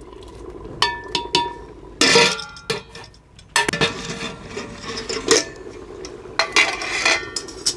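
A steel plate lid handled with metal tongs, clinking and scraping against the rim of a metal cooking pot several times, each clink ringing briefly.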